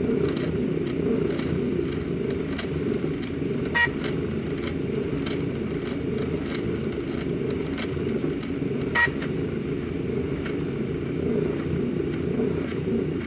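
Stepper motors of a homemade wooden-framed 3D printer humming steadily as it prints, with a couple of brief clicks.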